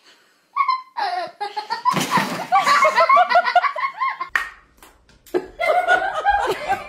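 People laughing and giggling in loud bouts, with a short break about five seconds in.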